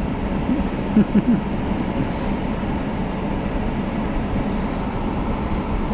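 Steady rumble of a car's interior heard from the back seat, with a few short low sounds about a second in.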